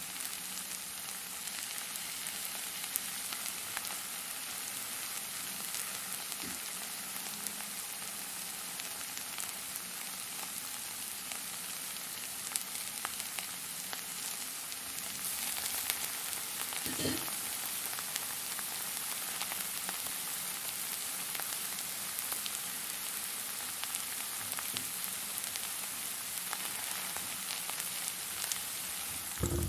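Fire burning with a steady high hiss and scattered small crackles and pops, a louder pop about halfway through and another near the end.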